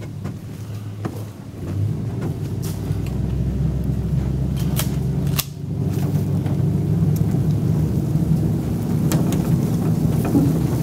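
Low steady rumble of a vehicle moving slowly along a wet dirt road, growing fuller about two seconds in, with a few sharp clicks.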